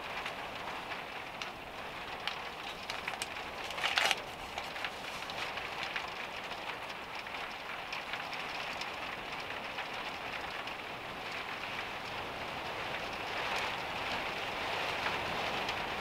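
Steady heavy rain on the camper van's roof, heard from inside as an even patter with scattered small ticks. A short rustle stands out about four seconds in.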